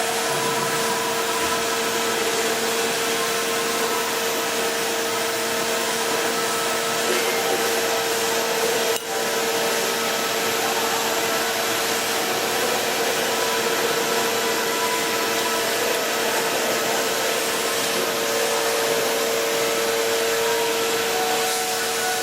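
Steady whirring machine noise with a constant humming tone, like an electric motor running without a break, dipping briefly about nine seconds in.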